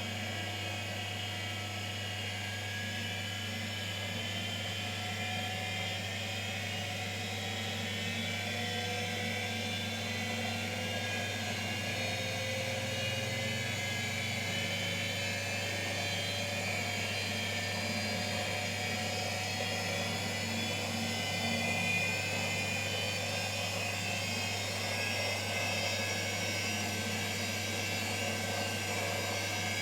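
Indesit WISL103 washing machine running: a steady motor whine over a constant low hum, its pitch shifting slightly.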